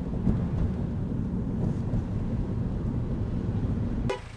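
A car on the move: steady low road and engine rumble that cuts off suddenly near the end.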